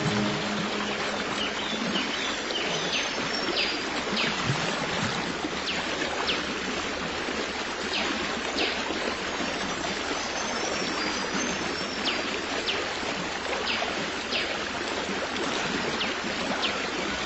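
Running water of a stream, a steady rushing with many brief, high chirps scattered through it.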